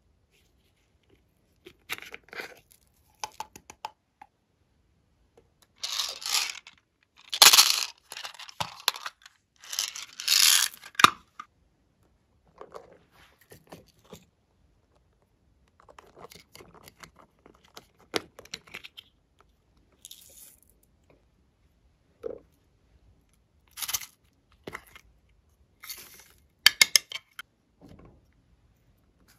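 Small plastic containers handled and opened, with glitter and sequins shaken out onto slime: irregular bursts of rustling and crackling with light clicks, the loudest a few seconds in.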